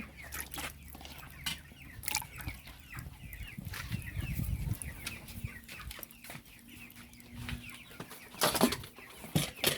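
Chickens clucking, short calls scattered throughout, with a few sharp knocks and clatters; the loudest comes about eight and a half seconds in.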